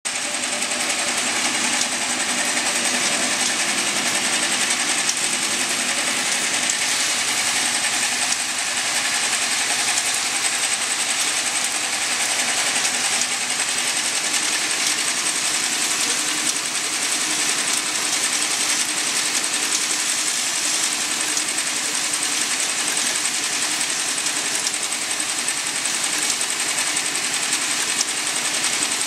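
Automatic 10 ml glass vial filling and sealing line running: steady, rapid mechanical clatter with a constant high whine.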